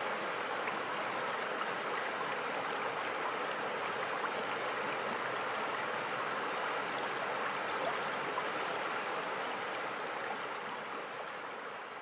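River water running steadily over a rippling stretch of current, an even rushing that starts to fade out near the end.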